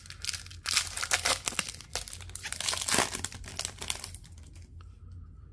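Trading-card pack wrapper crinkling as it is torn open and the cards are pulled out, dying down about four seconds in.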